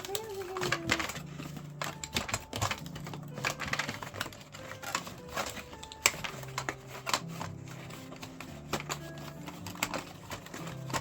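Irregular clicks and taps of a plastic toy truck and its packaging being handled while it is unboxed.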